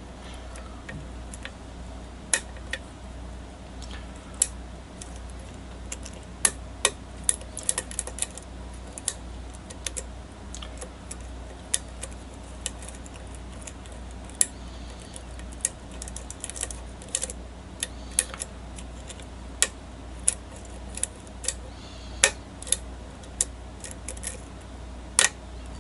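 Small, irregular metallic clicks and ticks of a lock pick and tension wrench working the pins of a challenge lock during single-pin picking, over a steady low hum.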